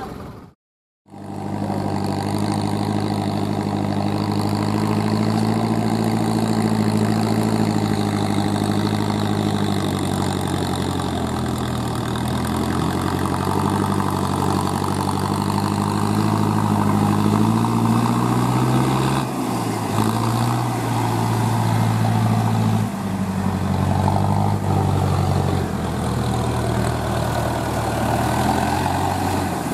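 Diesel tractor engine running under load as the tractor churns through mud, its pitch rising and falling. The sound cuts out for under a second near the start.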